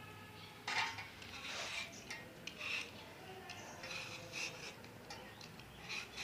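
Hand-held swivel peeler scraping the skin off an apple in short, irregular strokes, with a louder sharp click about a second in.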